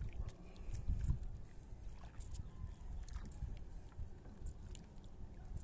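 Fishing line being hauled in hand over hand, with scattered light clicks and rustles over a steady low rumble.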